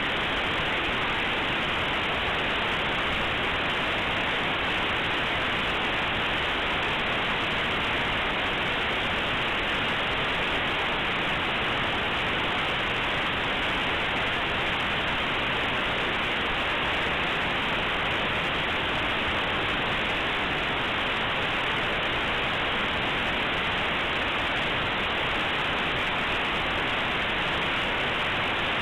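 Compressed Linux kernel data played as raw audio through aplay: a steady, even static hiss with no tones or rhythm, dull with nothing above about 4 kHz.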